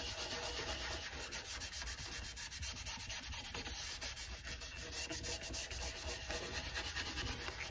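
Bristle paint brush scrubbing black glaze into the open grain of a stripped wooden panel, a steady scratchy rubbing made of many short back-and-forth strokes.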